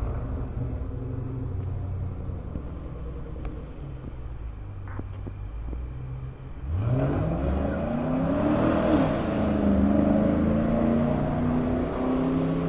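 Pontiac Trans Am WS6's LS1 V8 rumbling at low revs as the car moves off. About six and a half seconds in it is floored: the engine note climbs steeply for about two seconds, then stays loud at high revs.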